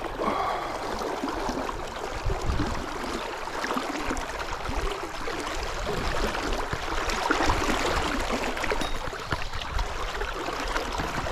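A brook's water running steadily.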